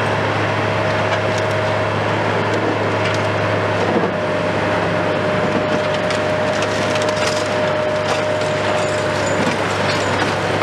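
Hitachi long-reach demolition excavator running steadily under load, with a thin steady whine, while its demolition jaws crunch through concrete in scattered cracks and crackles of breaking, falling debris.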